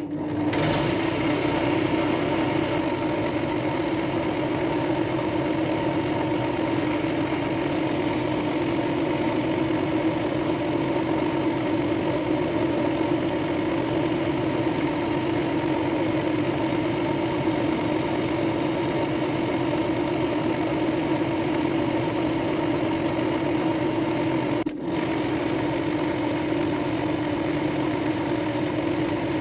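Pillar drill motor running steadily, spinning a brass-and-dark-wood ring on a mandrel while 400-grit sandpaper is held against it, with a faint sanding hiss. The sound starts abruptly, and there is a brief dip about 25 seconds in.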